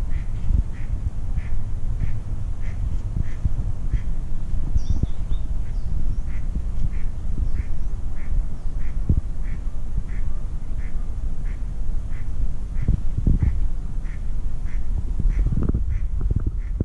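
Wind rumbling on the microphone, with a faint short chirp repeating evenly about twice a second.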